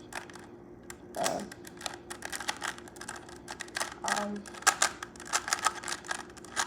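A plastic Rubik's speedcube being turned quickly by hand: a rapid run of light clicks from its layers, several a second, thickening about two seconds in. Two brief murmurs of a voice come through it.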